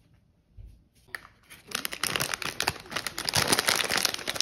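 Plastic snack bag being handled and crinkled, starting about a second and a half in and going on as a dense, loud crackle.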